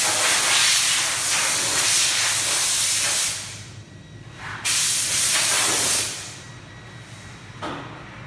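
Loud hissing in two long bursts, the first about three seconds and the second just over a second, each starting suddenly.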